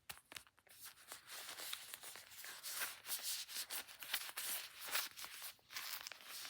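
Yarn being scratched and rubbed up close, a continuous run of soft, crackly scratching strokes.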